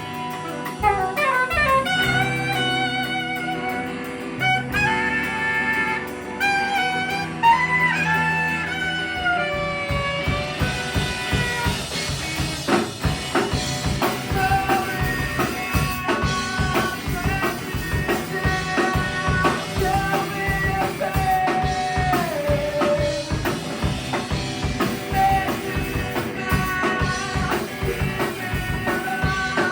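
Live band playing a jazz-tinged punk song: a lead melody with vibrato over held chords, then the drum kit comes in about ten seconds in and the full band plays on with a steady beat.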